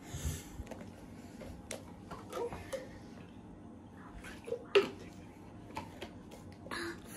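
Scattered faint clicks and knocks of a plastic water bottle being handled as a girl drinks a mouthful from it, with a short rustle at the start and a sharper click about five seconds in.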